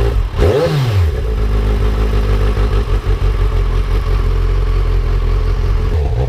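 Kawasaki Z1000's inline-four engine, fitted with aftermarket exhausts and just started, blipped once about half a second in, pitch rising and falling, then idling steadily.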